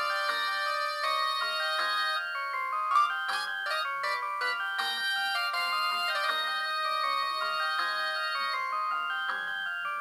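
A Samsung SGH-M150 mobile phone playing a ringtone: a fast melody of short electronic notes, often several sounding at once.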